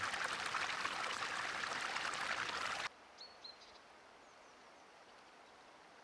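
River water running as an even rush, cut off abruptly about halfway through. After that there is near silence with a few faint, high bird chirps.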